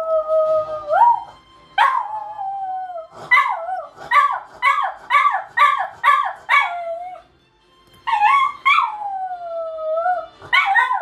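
Pet dog howling: long falling howls broken by a run of short up-and-down yips, about two a second, in the middle, a short pause, then another long falling howl near the end.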